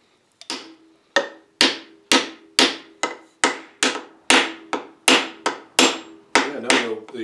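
Hammer blows on a wooden wedge, about fifteen strikes at roughly two a second, each with a short ring. The wedge is being driven into the slotted tenon of a table's pedestal base to lock the joint tight.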